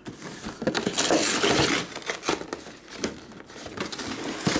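Cardboard mini-helmet box being torn open and handled, with paper tearing and packaging crinkling, loudest about a second in.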